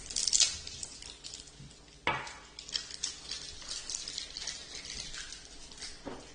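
Crackly rustling and light clatter of things being handled, with a sharp knock about two seconds in.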